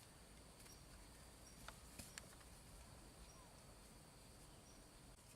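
Faint outdoor ambience with a steady high insect drone, a few short high chirps and three light clicks near the middle.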